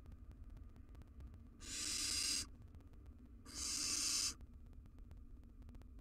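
Barn owl nestlings giving two harsh hissing calls, each under a second long, with about a second between them.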